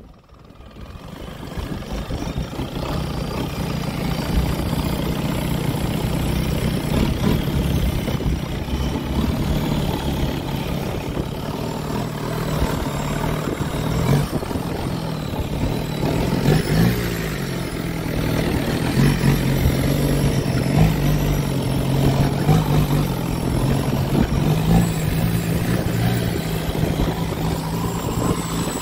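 Wooden boat's engine running steadily under way, a low drone whose pitch shifts slightly now and then, over wind and water rushing past the hull. It fades in over the first two seconds.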